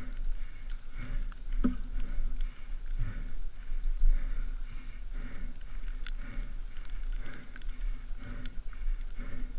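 Mountain bike ride picked up by a helmet camera: a rhythmic sound repeating about every two-thirds of a second, with scattered sharp clicks and knocks.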